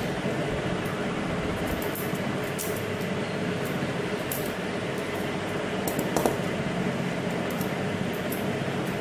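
Steady background hum and hiss with a few faint ticks, and a brief knock about six seconds in.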